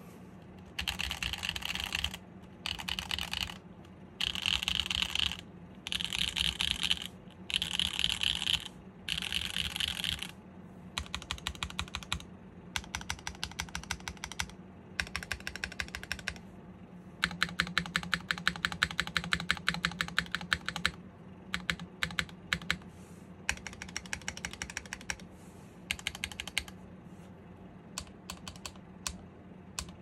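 Typing on a custom mechanical keyboard with SWK Ghost Dragon switches, an aluminum top-mount plate and KKB Vibrato keycaps. It starts with short runs of fast keystrokes, then separate presses, another fast run about halfway through, and single scattered keystrokes toward the end.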